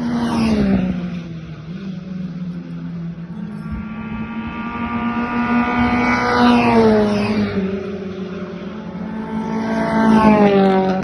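Modified Ford race cars going past one after another: three loud engine notes that swell and drop in pitch as each car passes, about half a second in, in the middle and near the end. A steadier engine note runs underneath.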